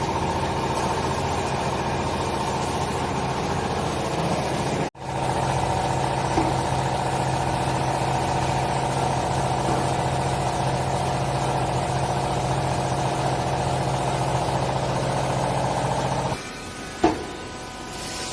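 Small hydraulic baler's motor and pump running with a steady hum, broken by a brief gap about five seconds in; the machine stops near the end, followed by a single sharp click.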